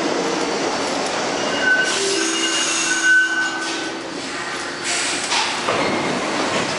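R62A subway train braking to a stop in the station, with a steady rumble and squealing tones as it slows, then its doors sliding open about five seconds in.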